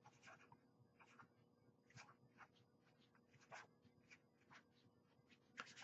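Felt-tip marker writing on paper: a quick series of faint, short scratchy strokes as a line of an equation is written.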